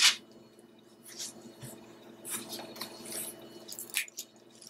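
Fresh parsley being stripped from its stems by hand: crisp leafy rustling with small snaps. There is a sharp snap right at the start and another about four seconds in.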